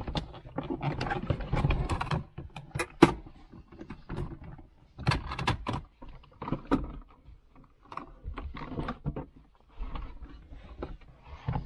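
Plastic center console being pulled free and worked over the parking-brake lever: irregular plastic clicks, knocks and rubbing, with one sharp click about three seconds in.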